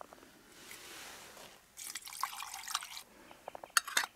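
Water poured from a stainless steel vacuum flask into a steel camp cup, with a trickling pour for most of the time. Near the end come a few metal clinks as a lid goes onto the cup.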